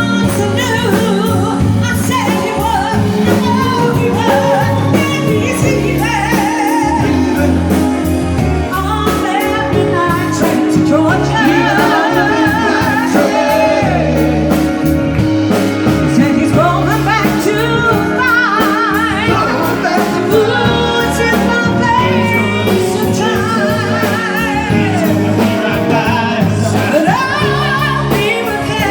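A song: a voice singing with strong vibrato over continuous instrumental backing with a regular beat.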